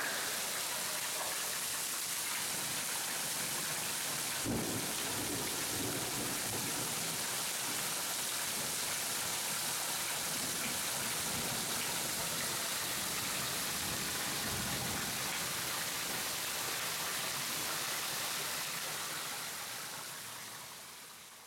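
Heavy rain mixed with hail falling steadily, with a sharp crack of thunder about four seconds in and a low thunder rumble about two-thirds of the way through. The storm sound fades out near the end.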